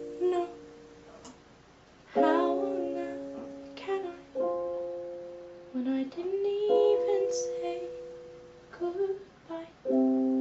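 Instrumental passage of a slow, quiet song: chords struck about every two to three seconds, each left to ring and fade, with a few softer single notes between.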